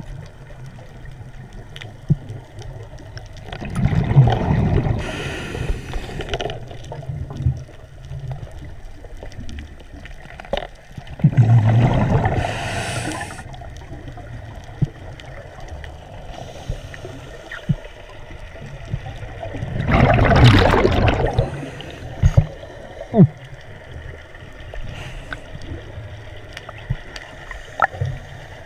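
A scuba diver breathing underwater through a regulator, heard through an underwater camera housing: three breaths about eight seconds apart, each a rumble of exhaled bubbles and a hiss of inhaled air, with scattered small clicks between.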